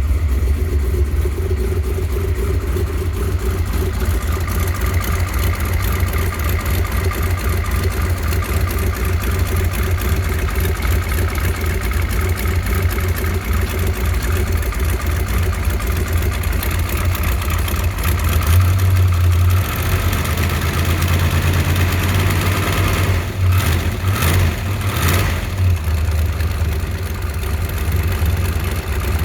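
A 393 engine running, with a noise the owner cannot identify and likens to dieseling; he suspects the camshaft. The running note changes about two-thirds of the way through, and a few short sharp sounds come about three quarters of the way in.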